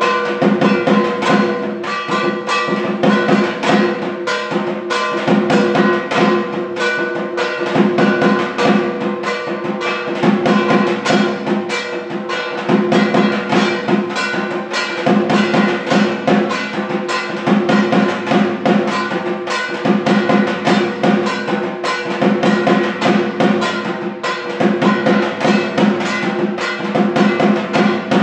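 Dhak, a large barrel drum, beaten with sticks in a fast, steady rhythm, with sustained ringing tones beneath the beats.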